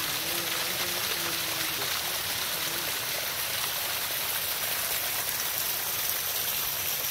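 Hot-spring water pouring and splashing down a small rock cascade: a steady rush of running water.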